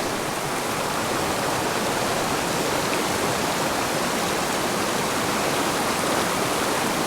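Fast-flowing mountain creek: a steady, even rush of water.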